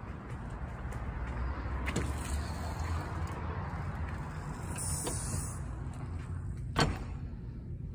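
Aluminium-framed glass storefront door being opened and let swing shut, with a click early on and a sharp knock about seven seconds in as it closes, over a steady low rumble.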